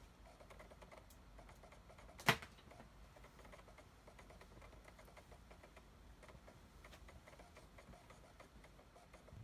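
Faint, irregular clicking, with one sharp, much louder click about two seconds in.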